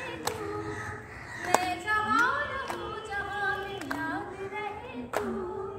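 Female voices singing a slow song with long held notes, broken by a few sharp clicks.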